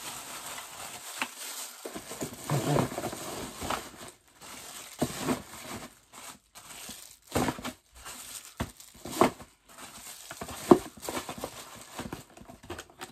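Packaging crinkling and rustling in irregular bursts as boxed household items are handled, with a few sharp knocks; one loud knock comes about three-quarters of the way through.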